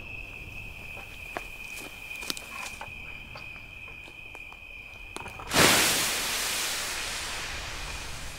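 Crickets chirring steadily at night, with a few faint crackles from the campfire embers. About five and a half seconds in, a sudden loud rushing whoosh cuts in over everything and slowly fades away.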